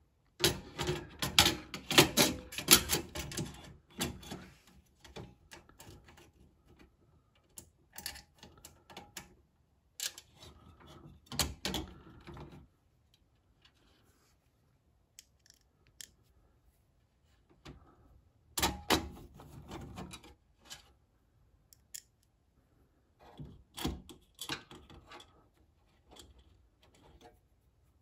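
Hard drive and small mounting screws being handled in a steel PC case drive bay: irregular metallic clicks, clatters and rattles in bursts, busiest in the first few seconds, with quiet gaps between.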